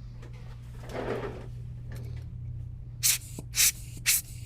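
Three short hissing sprays from a pump spray bottle of alcohol, about half a second apart, starting about three seconds in: cleaning solvent being applied. A steady low hum runs underneath.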